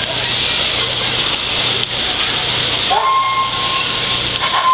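Fukuoka City Subway train sounding its horn as it approaches: a single steady high tone, starting with a short upward slide about three seconds in and held about a second, then a second short blast near the end, over a steady hiss.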